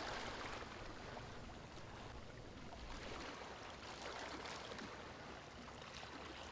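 Faint ocean waves washing in a soft, even hiss.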